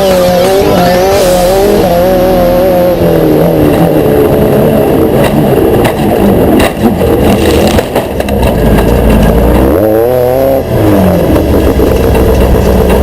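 Race vehicle engine revving hard, its pitch wavering up and down, mixed with a loud rush of noise; near the end a rev rises and falls again before the sound cuts off suddenly.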